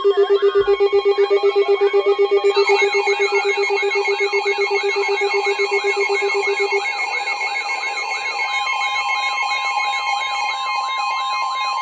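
Several weather alert receivers sounding their alarm tones at once: a fast-pulsing low beep that stops about seven seconds in, steady alert tones, and from about two and a half seconds in a warbling siren-like tone repeating about three times a second, signalling a National Weather Service special marine warning.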